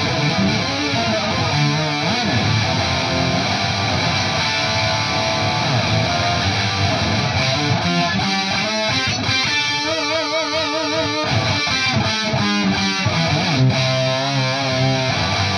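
Distorted electric guitar played through an Electro-Harmonix Intelligent Harmony Machine pitch-shifting pedal. The pedal sits after the amp's distortion and adds harmony voices that sound with each note, giving a full, synth-like chordal tone. Held notes waver with vibrato about ten seconds in and again near the end.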